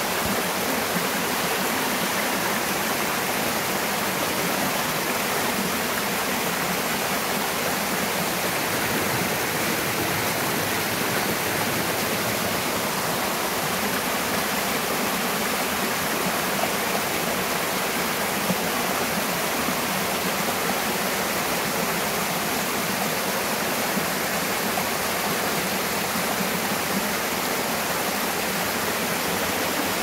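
Mountain stream rushing white over a narrow bedrock chute, a steady, unbroken rush of water.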